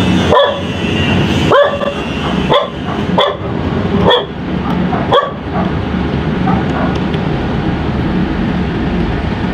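A dog barking, about six barks in the first five seconds, over a steady low background drone.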